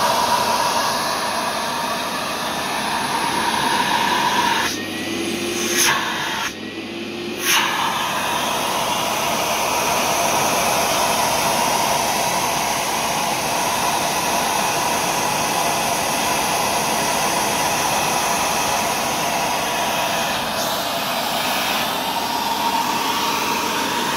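Cleanfix TW 300 carpet and upholstery spray-extraction cleaner's suction motor running steadily, a rushing hiss with a faint steady whine. About five to eight seconds in, the sound dips twice briefly, each dip ending in a click, then runs on evenly.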